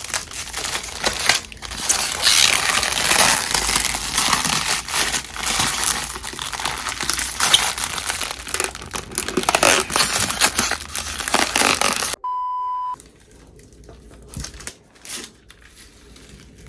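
Close crinkling and rustling handling noise, dense with small crackles, for about twelve seconds. It cuts off suddenly and is followed by a single steady electronic beep lasting about half a second, then fainter rustling with a few soft clicks.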